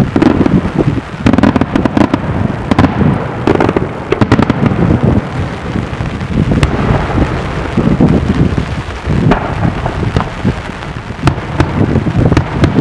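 Daytime fireworks barrage: aerial shells bursting overhead in quick succession, a continuous rumble of booms broken by many sharp cracks.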